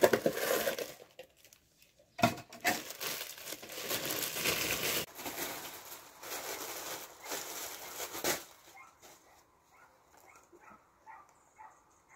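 Plastic shopping bag and plastic packaging crinkling and rustling as items are pulled out and handled. This comes in two spells, a short one at the start and a longer one that stops about eight seconds in, after which only faint short repeated sounds remain.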